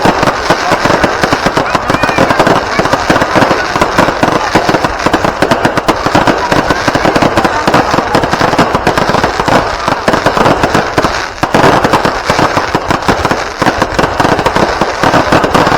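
Fireworks going off in a dense, unbroken barrage of rapid overlapping bangs and crackles, loud throughout, easing briefly about two-thirds of the way through.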